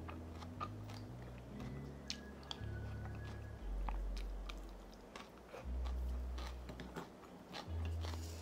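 Spoon clicking against a bowl and sipping of noodle broth from the spoon, over soft background music with low, sustained bass notes.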